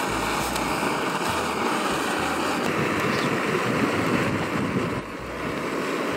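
Chopped garlic and onion frying in hot oil in a pan, a steady sizzle.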